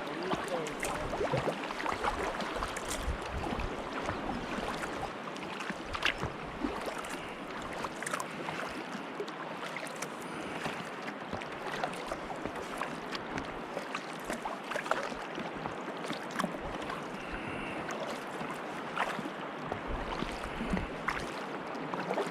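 Water splashing and lapping around a kayak as it is paddled, with small irregular splashes and drips from the paddle blades over a steady wash of water.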